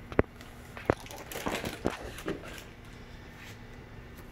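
Plastic fish shipping bags being handled, with two sharp clicks about a second apart near the start, then softer crinkling and rustling.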